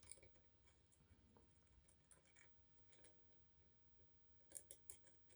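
Near silence broken by scattered faint clicks of lock-picking tools in an Adamant pin lock, with a quick cluster of three near the end.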